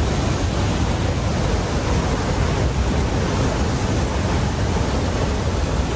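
Floodwater pouring over the crest of an overflowing river causeway weir: a loud, steady rush of falling water.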